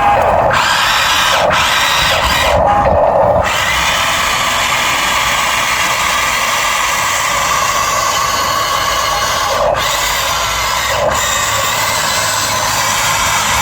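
RC excavator's electric motors whirring steadily, a drill-like whine as the machine works.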